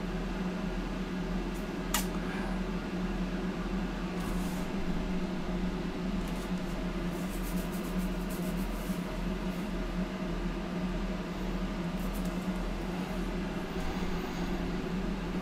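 Steady low electrical hum and hiss of background room noise, with one sharp click about two seconds in.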